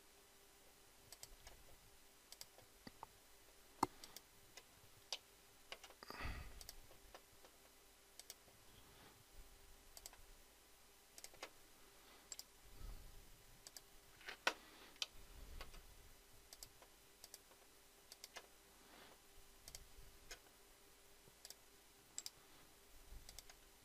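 Faint, irregular computer mouse clicks, single and in quick pairs, scattered over quiet room tone with a faint steady hum.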